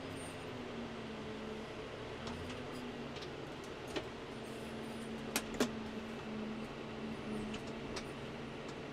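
John Deere tractor engine running, heard from inside the cab while the front loader tips muck into a trailer. Its pitch dips slightly in the first second and then holds steady, with a few sharp clicks past the middle, two in quick succession.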